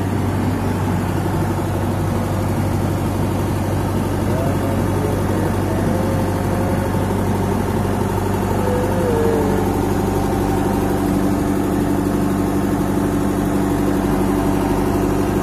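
Excavator's diesel engine running steadily, heard from inside the operator's cab.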